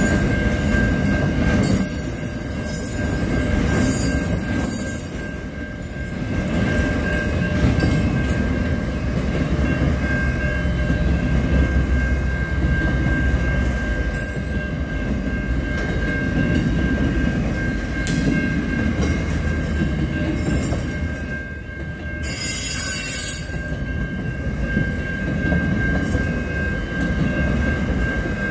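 Freight train of container wagons rolling past at a level crossing: a continuous low rumble of wheels on rail, with high wheel squeal breaking out in short bursts several times. A steady high tone runs underneath.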